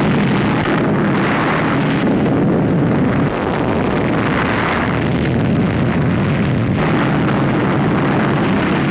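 Volcanic eruption of Parícutin, a steady loud roar with several louder swells of blasts, heard on an old newsreel soundtrack.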